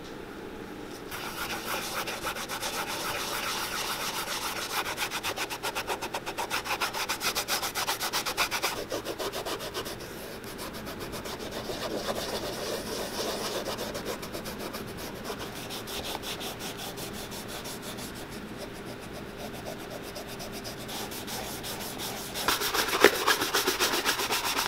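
Cotton rag rubbing shoe polish into the leather of a baseball cleat in quick, steady back-and-forth strokes. About two seconds before the end, a bristle shoe brush takes over, buffing the leather with louder, brisker strokes.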